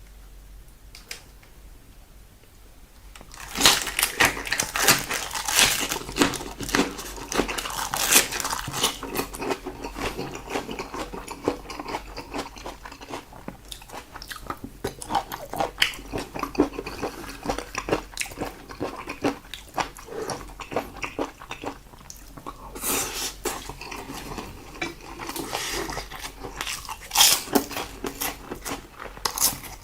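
A person chewing and biting food close to the microphone, with dense, irregular wet mouth clicks and smacks that start about three and a half seconds in after a quiet moment.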